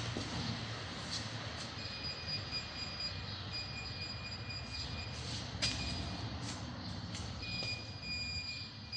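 Hyundai Tucson rear parking sensor warning sounding: a high-pitched electronic beep tone that starts about two seconds in and breaks off briefly a couple of times. It is sounding with the reversing light switch jumpered out, a sign that the wiring from the switch to the sensor system is good.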